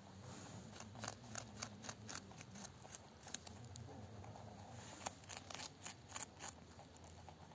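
Rabbits crunching raw carrot: quick, sharp bites at about five a second, in two runs with a pause between.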